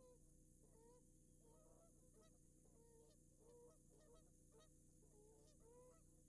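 Geese honking faintly, a flock giving short repeated calls about two a second, over a steady low hum.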